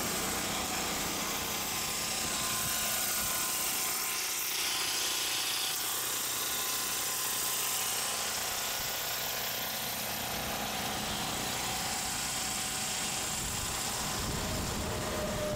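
Steady machine whir with a hiss that stays much the same throughout, with a few faint steady tones beneath it.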